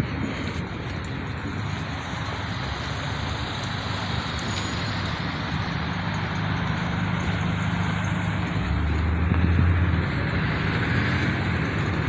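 Street traffic: a steady hiss of road noise under a motor vehicle's low engine hum, which grows louder from about five seconds in and peaks around nine to ten seconds.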